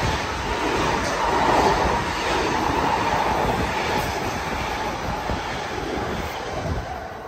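Long Island Rail Road electric multiple-unit train running past the platform: a dense rumble and rail noise with a steady whine. It is loudest about a second or two in and fades as the last car goes by near the end.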